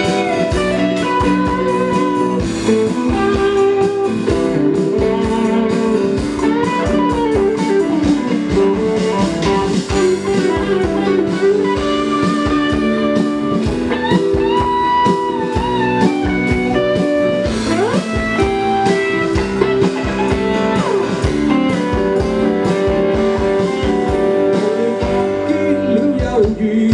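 Live rock band playing with guitar to the fore: electric guitar lines with bent notes over strummed guitar and a steady drum-kit beat, no singing heard.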